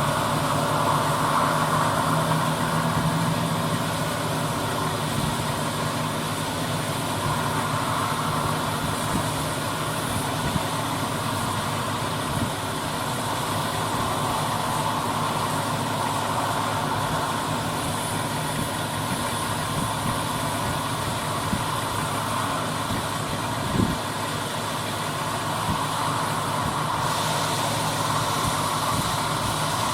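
John Deere S680 combine running steadily as it harvests corn, a continuous heavy engine and machinery drone, with one short knock about 24 seconds in.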